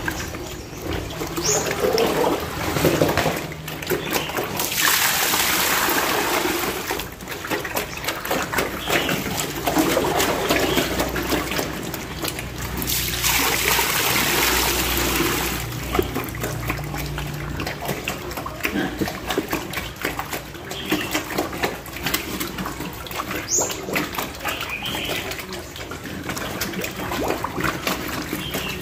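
Piglets eating soaked bran mash from a trough: busy wet slurping and chomping. Two louder splashing rushes stand out, about five seconds in and again about fourteen seconds in.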